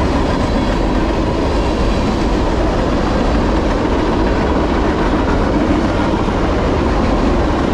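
Norfolk Southern freight train cars rolling past, a loud, steady rumble and rattle of steel wheels on the rails.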